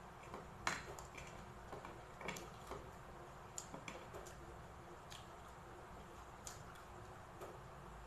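Close-up eating sounds from chewing a mouthful of crispy fried pork belly and rice: irregular sharp clicks and smacks of the mouth, the loudest about a second in.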